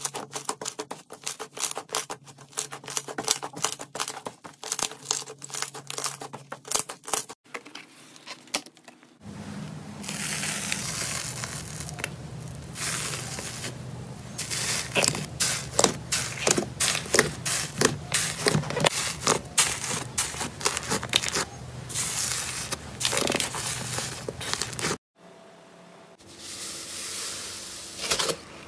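Slime squeezed and pressed by hand, giving a dense run of small crackling pops and clicks as trapped air bursts. The crackling gets louder and busier about nine seconds in, and drops away briefly near the end.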